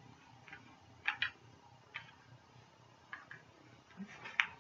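Faint, scattered light clicks and taps, a handful spread over a few seconds with a small cluster near the end.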